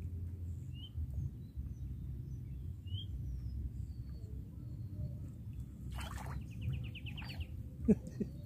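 Steady low outdoor rumble with scattered bird chirps and, past the middle, a fast rattling bird trill. Near the end, a short loud splash as a small fish is lifted out of the water on a fishing pole.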